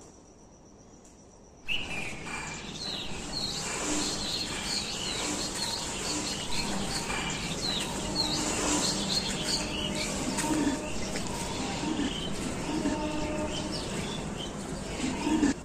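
Many birds chirping and calling together over a steady outdoor background, cutting in suddenly just under two seconds in after a quieter start.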